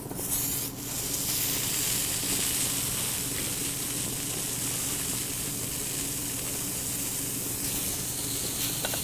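Slices of raw pen shell adductor muscle sizzling on a small tabletop charcoal grill. The sizzle starts just after the first slice is laid on the hot grate, then holds as a steady hiss.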